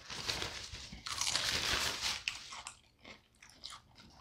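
Crunchy food chewed close to the microphone: dense crunching for the first two and a half seconds or so, then fading to scattered quieter mouth clicks.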